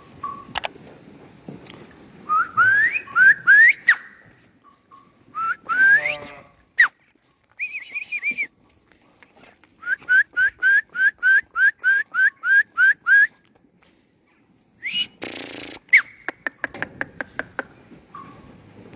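A person whistling to call sheep: short rising whistles repeated in runs, including a quick string of about a dozen at roughly four a second in the middle. Near the end, a short harsh burst and a rapid patter of clicks.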